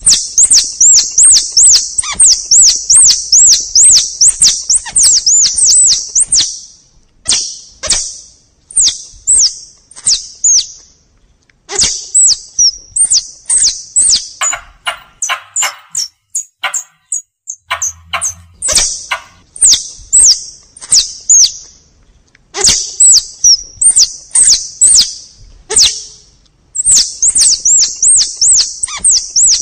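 Squirrel lure call: rapid, high-pitched chirps, about three a second, in bouts of several seconds broken by short pauses, with sharp clicks in between.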